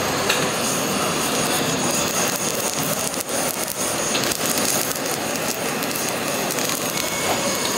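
Handheld kitchen blowtorch burning with a steady rushing hiss as its flame sears a rice bowl's mentaiko topping.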